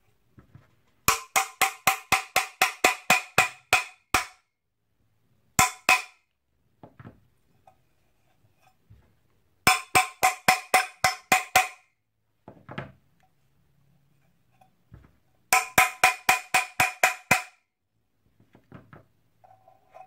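Metal cover of a seized vacuum cleaner motor struck in rapid runs of about four blows a second, each blow ringing with a metallic tone, to loosen the stuck cover; four such runs with short pauses between.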